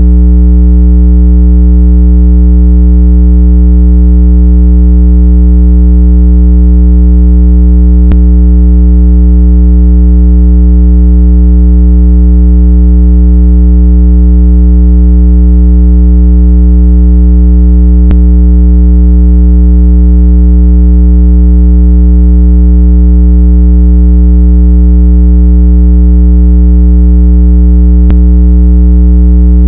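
Loud, steady low-pitched electronic tone with many overtones, a speaker-cleaning tone meant to vibrate water out of a wet phone speaker. A faint click comes about every ten seconds.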